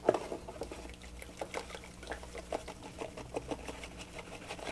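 Baking soda shaken from a cardboard box into a tub of water: a run of soft, irregular ticks and rustles, over a faint steady hum.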